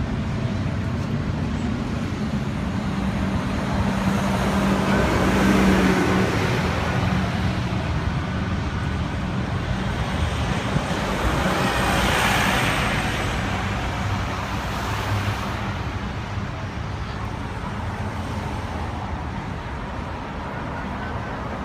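Slow procession traffic driving past at close range: a large charter coach bus's engine and tyre noise swell as it passes about halfway through, then settle into the steady sound of the cars that follow.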